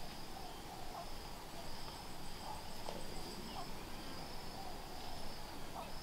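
Insects trilling in a continuous high-pitched chorus that pulses slightly. A few short, faint chirps sound lower down, over a low rumble of outdoor noise.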